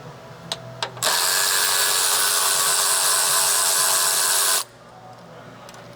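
A handheld power tool runs steadily for about three and a half seconds, starting about a second in and cutting off sharply. A couple of light clicks come just before it.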